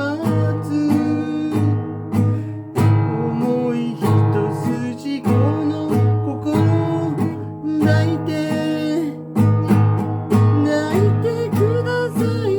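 Music: a song's backing with strummed acoustic guitar over a steady, pulsing bass beat and a wavering melody line.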